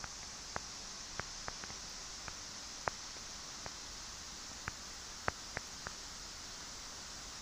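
Steady high-pitched outdoor hiss with about a dozen sharp clicks at irregular intervals.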